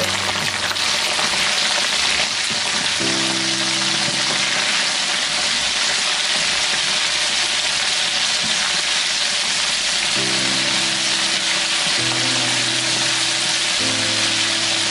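Chicken wings deep-frying in hot oil: a steady, dense sizzle of bubbling oil, with background music chords underneath.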